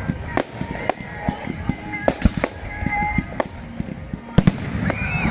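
Fireworks going off: a rapid, irregular run of sharp bangs and crackles, with a couple of louder booms about two and four seconds in.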